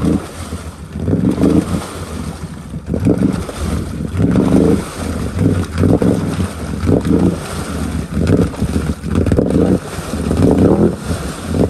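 Can-Am Outlander XMR ATV's V-twin engine revving in repeated bursts of throttle, roughly one a second, as the bogged-down quad churns through deep mud and water.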